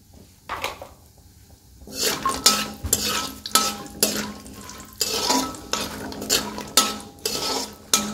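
A slotted spoon stirring and scraping walnuts frying in ghee around an aluminium wok. After a brief scrape, a run of repeated scrapes against the pan's metal starts about two seconds in.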